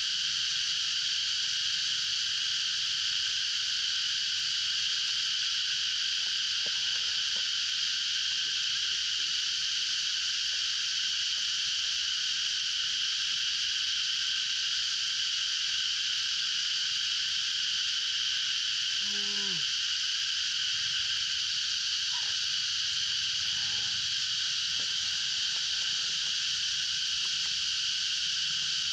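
Steady, dense, high-pitched chorus of small calling animals, unbroken throughout. A brief, low, falling call cuts in about two-thirds of the way through, and another soon after.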